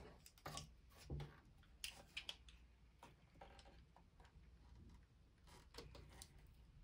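Faint, scattered clicks and taps of a Sony CFD-S401 CD/cassette boombox's plastic casing and raised carry handle as it is handled, with a few more clicks near the end.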